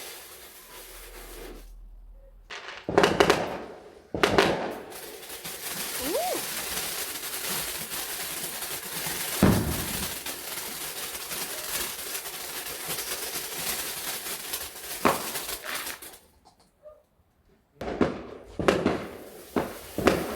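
Fireworks going off: several sharp bangs, with a steady crackling in between, and a quick run of bangs near the end.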